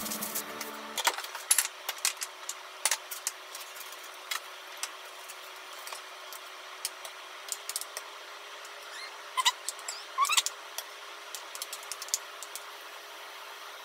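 Scattered light clicks and taps of a plastic onigiri mold and utensils being handled over a stainless steel mixing bowl of rice, over a faint steady hum. Two short high squeaks come about nine and ten seconds in.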